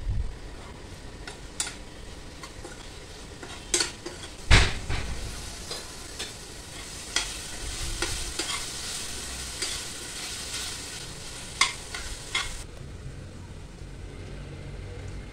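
Small onions and tomato frying in oil in a stainless steel pan with a steady sizzle, stirred with a steel slotted spoon that knocks and scrapes against the pan now and then; the loudest knock comes about four and a half seconds in. The sizzle thins near the end.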